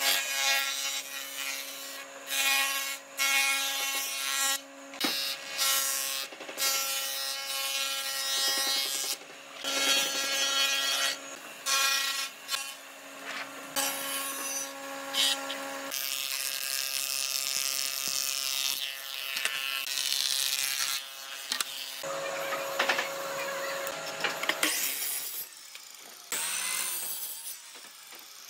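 Jointer planing wooden boards: the machine's steady hum with the rasping cut of the cutter head, pass after pass, broken by short pauses between boards.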